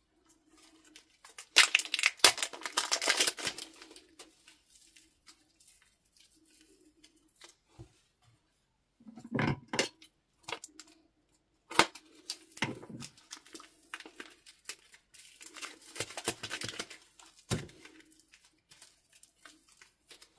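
Small plastic packets of slime being handled and opened: the plastic crinkles and crackles in bursts, with light knocks against the plate as the slime is squeezed out.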